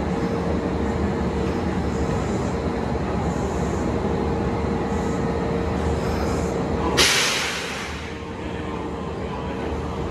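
Kintetsu electric train standing at the platform with a steady rumble and hum. About seven seconds in comes a sudden sharp hiss of released compressed air that fades within about a second.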